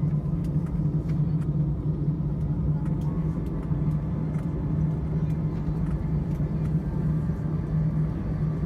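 Steady jet engine drone heard inside an Airbus A319 airliner's cabin: a constant low hum over an even rushing noise.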